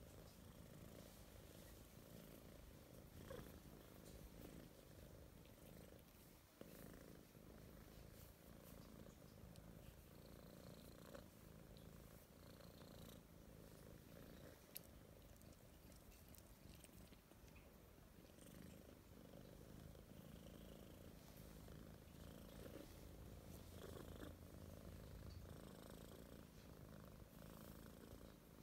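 A kitten purring steadily and faintly while being stroked, with a few faint clicks.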